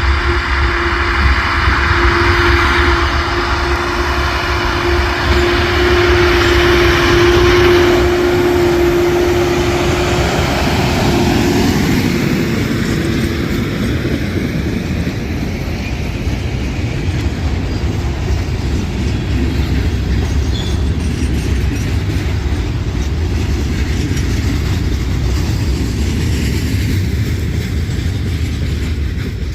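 Brandt hi-rail truck running along the rails: steady rumble and rail noise, with a single steady tone for the first dozen seconds or so that then fades.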